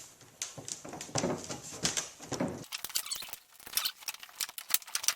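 Plastic squeaks and scrapes, then a quick run of small sharp clicks from about halfway through, as a locking pin is worked down through the hinge holes of a folding kayak. The holes are not quite lined up, so the pin will not seat.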